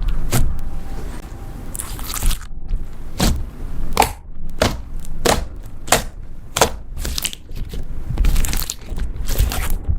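Slime being squeezed and pressed by hand, giving a series of sharp crackling pops, roughly one every half second to a second.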